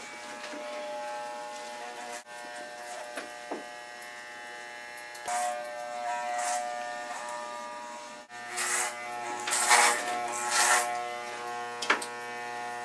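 Electric hair clippers buzzing steadily. The buzz breaks and shifts slightly about two seconds in and again about eight seconds in, and several brief, louder noisy bursts rise over it in the second half.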